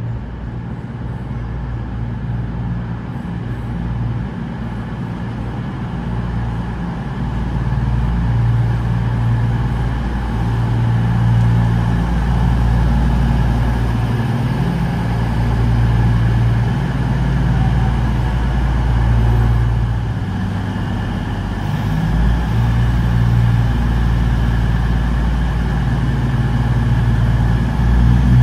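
CrossCountry Voyager diesel multiple unit's underfloor diesel engines running with a steady low hum, growing louder as the train comes in alongside the platform.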